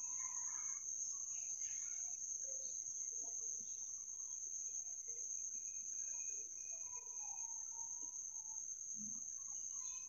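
A steady, high-pitched tone held at one pitch throughout, over faint scattered scraping as a spoon stirs spiced vegetables frying in a steel kadhai.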